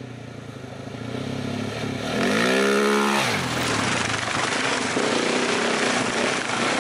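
An adventure motorcycle comes up a dirt track and revs past, its engine pitch rising and then falling about two to three seconds in. After that comes the steady running of a motorcycle under way, with a haze of wind and road noise.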